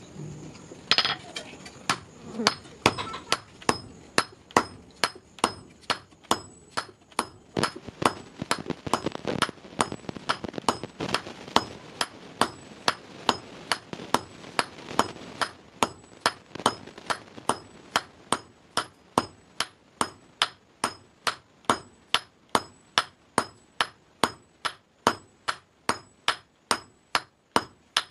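Hand hammer striking a red-hot iron bar on an anvil, forging it for a wall hook. The blows come in a steady rhythm of about two to three a second, each with a short metallic ring.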